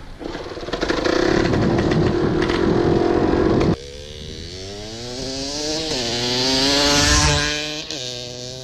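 Dirt motorcycle engine. For the first few seconds it is heard from on the bike, loud and rough with wind noise. About four seconds in it cuts to the bike heard from a distance as it rides away, the engine note climbing as it accelerates and dropping twice at gear changes.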